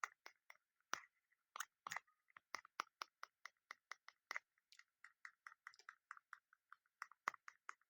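A broken push-type fidget toy being pressed over and over, giving a quiet, steady run of small clicks, about four to five a second.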